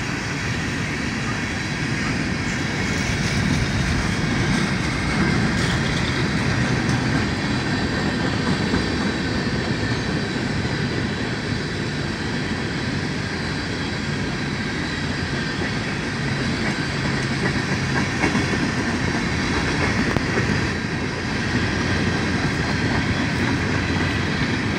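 Coal gondola cars of a freight train rolling steadily past close by: continuous rumble and clatter of steel wheels on the rails.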